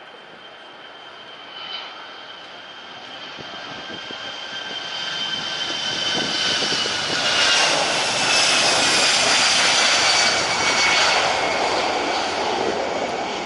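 Airbus A380 jet engines passing close by, growing louder over several seconds to a peak and then easing slightly. A high whine slides slowly down in pitch through the rushing noise.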